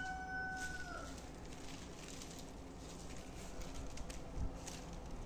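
A rooster crowing, its long held call dropping away and ending about a second in. Then soft rustling and light ticks of dry palm-straw strips being split and handled.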